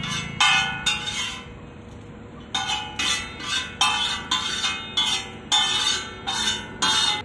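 Metal spatula clanging against a large flat griddle as chowmein noodles are stir-fried and tossed. The strikes come in a quick rhythm of about two a second and ring each time, with a pause of about a second early on.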